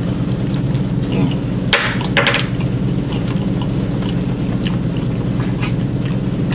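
Metal fork scraping and clicking against an aluminium foil food pan, with a few sharp clacks about two seconds in and lighter ticks later, over a steady low hum.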